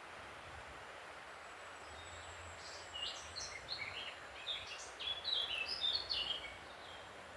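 A songbird singing a quick, varied run of short high notes from about three seconds in until shortly before the end, over a steady background hiss.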